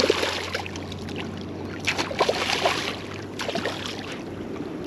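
A hooked redfish (red drum) thrashing and splashing at the surface beside the boat as it is reeled in, in several irregular splashy bursts. A low steady hum runs underneath and stops shortly before the end.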